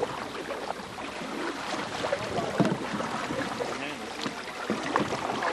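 Canoes out on a river: water moving and splashing around the hulls, with scattered small knocks and splashes, and faint voices of other paddlers in the distance.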